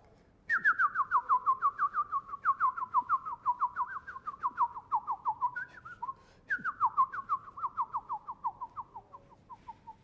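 Bird song: two long series of quick whistled notes, each note slurring downward, about five a second, the whole series sinking in pitch as it goes. The first series stops about six seconds in and the second starts half a second later, fading toward the end.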